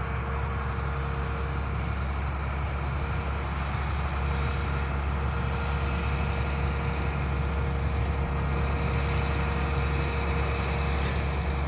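A vehicle engine running at a steady speed, a constant low rumble with a faint steady hum above it.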